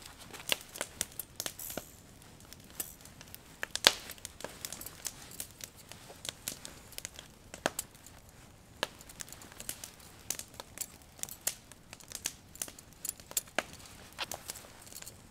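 Handling noise from camp cooking gear: irregular sharp clicks and crinkling rustles as a folding wire grill basket is handled over dry pine needles, with one louder click about four seconds in.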